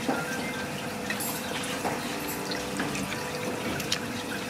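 Ramen-shop background of water running steadily, like a kitchen tap or washing-up, with a few light clicks scattered through it.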